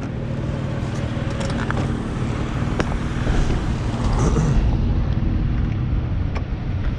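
Motor scooter running as it rides over cobblestones: a steady engine hum under a rumble from the paving, a little louder from about halfway through.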